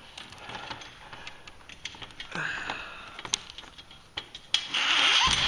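Hand work on garage door hardware: scattered light clicks and taps, with a short scrape about halfway and a louder, longer scrape near the end.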